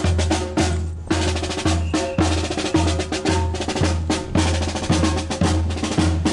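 Parade band music led by drums, with snare and bass drum beating a steady march rhythm of about two beats a second under held notes.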